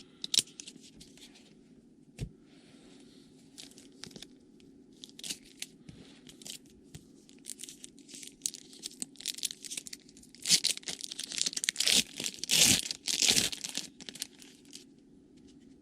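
Trading card pack wrapper being torn open and crinkled as the cards are handled, in scattered short rasps with a run of louder rips from about ten seconds in, over a faint steady low hum.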